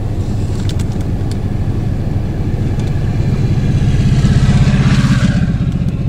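A motor vehicle's engine running close by, a steady low rumble that swells louder from about four seconds in and eases off near the end, with a couple of faint clicks about a second in.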